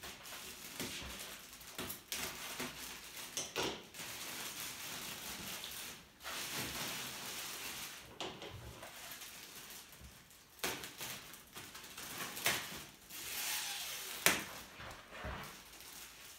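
Clear plastic protective wrap on a new digital piano being handled and pulled open, rustling and crinkling in long stretches, with a sharp click near the end.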